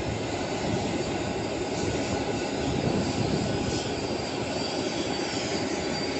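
Airbus A350 jet engines (Rolls-Royce Trent XWB) running at taxi power as the airliner taxis: a steady rumble with a faint high whine above it.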